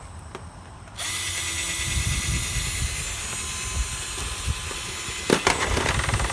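Electric drill boring into a flatscreen TV panel. It starts about a second in and runs steadily, with a sharp knock near the end.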